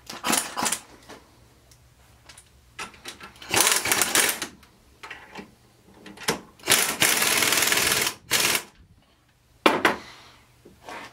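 Pneumatic impact wrench run in short bursts and one longer burst of about a second, driving the long alignment bolts that draw a ring gear onto a Detroit Truetrac differential carrier. A sharp metallic knock follows near the end.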